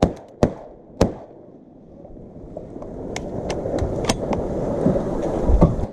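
Shotgun blasts from duck hunters firing a volley: three shots in about the first second. Then a building rustle of dry leaves and brush against the camera, with scattered small clicks and a low thump near the end.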